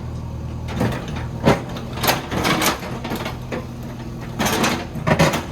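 JCB backhoe loader's diesel engine running steadily, with irregular sharp knocks and clatters on top about every half second to second.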